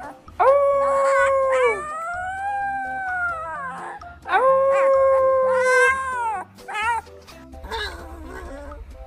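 Dog howling in a series of long, held howls, the two loudest starting about half a second and four seconds in, with shorter howls near the end, over background music.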